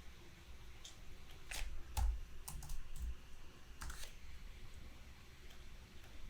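Computer keyboard keystrokes: a handful of scattered taps over the first four seconds, then quiet room noise.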